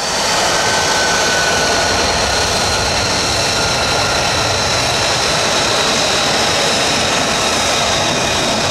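F-35B Lightning II's F135 turbofan jet engine running on the ramp at idle: a steady loud rush with a high whine that drifts slightly lower in pitch.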